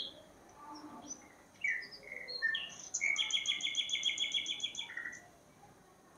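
A small bird chirping: a few short, high, falling chirps, then from about three seconds in a rapid trill of around nine notes a second lasting nearly two seconds.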